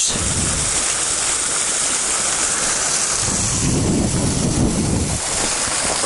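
Small waterfall splashing down rock ledges onto stones, a steady hiss of falling water. A low rumble joins in for about two seconds past the middle.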